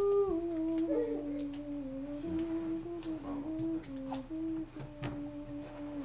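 A young girl humming a slow wordless tune, holding each note and stepping from pitch to pitch, with a few light clicks of toys being handled.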